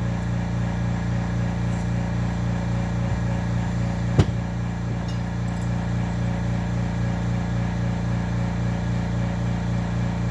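Steady machine hum with a slight pulse, and one sharp click about four seconds in.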